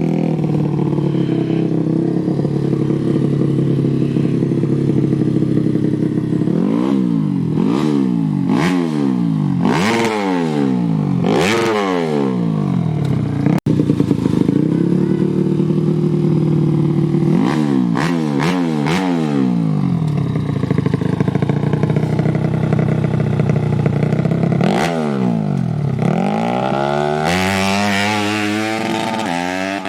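Modified 130cc underbone motorcycle engine idling and revved in a series of quick throttle blips, each rising and falling within about a second, with steady running between them. There is a momentary break about a dozen seconds in, and the engine runs higher and faster in the last few seconds.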